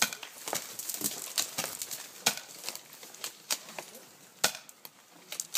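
Dry weeds and brush crackling and snapping as people push through them, about a dozen sharp snaps at uneven spacing, the loudest about four and a half seconds in.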